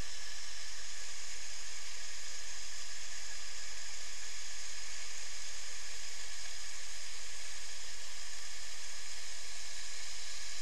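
Water pouring over a river weir in spate: a steady rushing hiss with no break.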